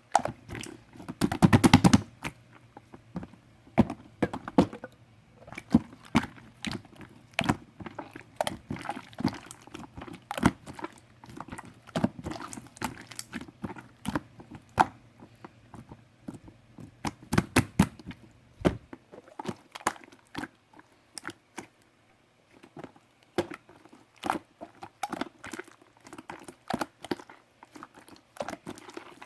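White marbled slime being worked by hand, making irregular sharp clicks and pops, with a dense, loud run of pops about two seconds in.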